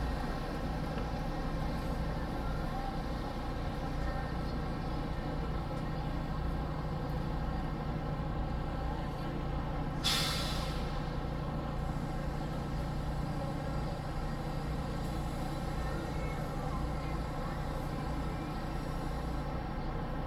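Tour bus engine running steadily, with one short, sharp hiss of air-brake air release about halfway through.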